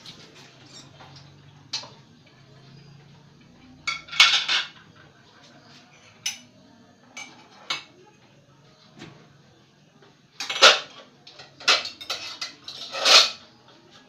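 Dishes and cutlery clattering and clinking in a kitchen sink during washing up: scattered knocks and clinks, with the loudest clatters about four seconds in and again in the last few seconds.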